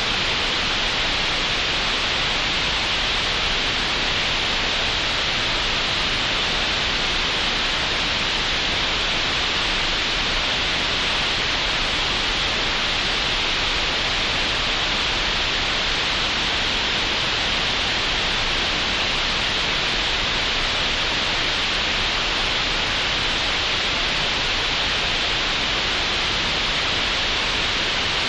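Computer-generated green noise: a steady, even hiss that never changes, brightest in the upper middle of the range.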